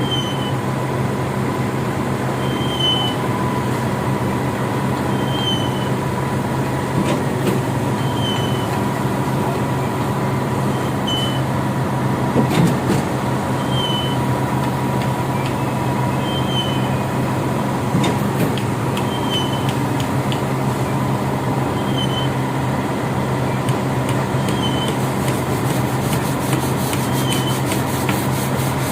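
Diesel engine of concrete-pouring machinery running steadily, with a short high chirp repeating about every two and a half seconds and a few scattered knocks.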